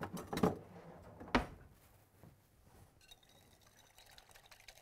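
Two knocks as a wire whisk is fetched from a kitchen drawer. Then, from about three seconds in, the wire whisk beats lemon juice and olive oil in a glass bowl with quick, light clinking against the glass, emulsifying a vinaigrette.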